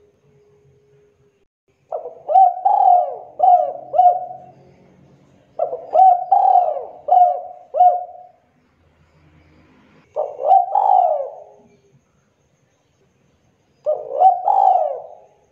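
Spotted dove cooing its song in repeated phrases. Each phrase has a drawn-out opening coo followed by short clipped 'kuk' notes, the two-kuk song type. A phrase comes about every four seconds, three full phrases and the start of a fourth.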